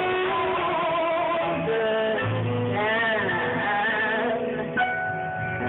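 Small jazz band playing a slow blues ballad: a saxophone line with a wavering vibrato over guitar accompaniment, with a sudden hit about five seconds in.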